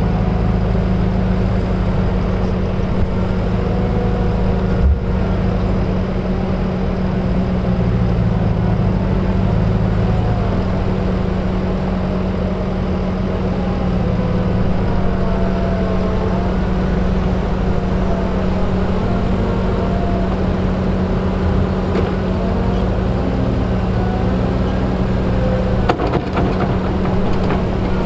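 Diesel engines of a Claas Scorpion 756 telehandler and a Fendt 720 Vario tractor running steadily at close range, with a fainter note rising and falling as the telehandler works its boom and grab bucket loading manure. A short knock comes about five seconds in and a few more near the end.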